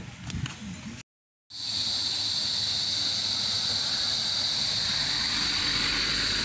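Steady high-pitched insect drone from the tree canopy, unbroken and even. It starts suddenly after a half-second gap of silence about a second in.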